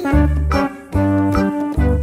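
Bouncy background music with deep bass notes struck in a steady pattern and higher notes over them.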